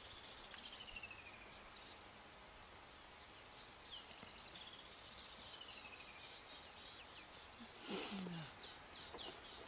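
Faint birdsong: repeated descending whistled notes and chirps, with a brief louder low sound near the end.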